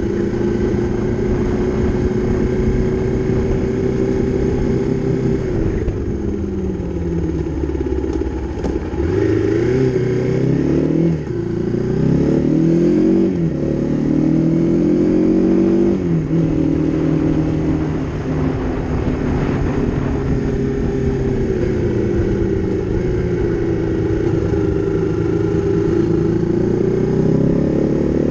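Honda CRF250 dirt bike's single-cylinder four-stroke engine running while riding. The note holds steady, then falls and climbs several times in the middle as the bike slows and picks up speed again, then settles into a steady cruise.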